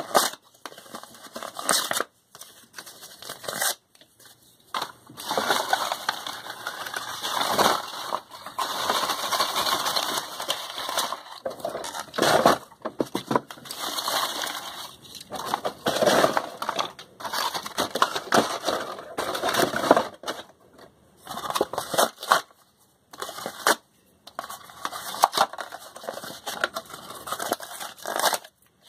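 Thin cardboard boxes being torn apart by hand: repeated ripping of brown cardboard and white paperboard, in uneven bursts with short pauses between tears.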